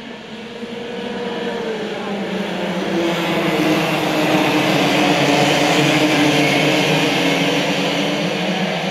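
A pack of two-stroke Rok Cup racing karts with their engines accelerating together as the field gets under way. The sound grows louder over the first few seconds into a steady mass of many overlapping engine notes, easing slightly near the end.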